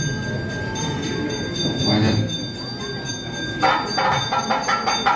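Murmur of people with steady ringing tones, then about three and a half seconds in a rhythmic run of percussion and bell-like ringing starts suddenly, several strokes a second.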